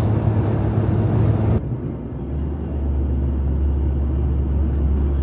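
Steady road and engine drone from inside a Jeep Gladiator's cab cruising on the highway. About a second and a half in, the sound changes abruptly: the hiss drops out and a lower, duller drone carries on.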